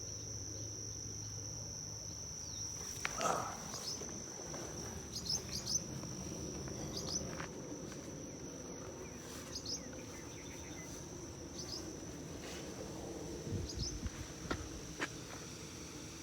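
Insects, likely crickets, trilling in a steady high-pitched drone, with short bird chirps scattered over it, a louder call about three seconds in and a few more near the end.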